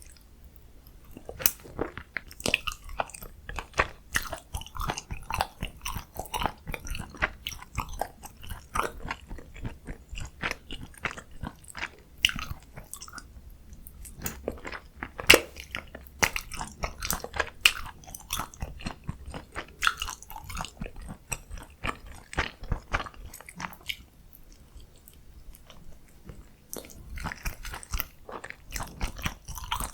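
Close-miked eating sounds: a person biting and chewing food, with many sharp wet mouth clicks, pausing briefly twice.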